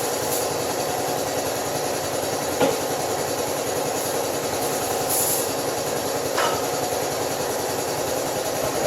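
Steady machine running noise, with a light knock about two and a half seconds in and another near six and a half seconds.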